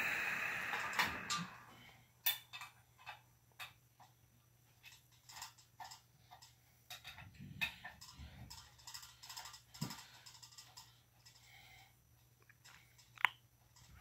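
Ceiling fan wiring and metal motor housing being handled: a rustle for the first couple of seconds, then irregular light clicks and taps, with a sharper click near the end.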